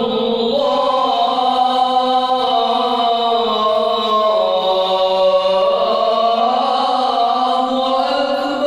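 A man's voice singing the Islamic call to prayer (adhan) into a microphone: one long drawn-out phrase held without a break, the pitch winding slowly up and down.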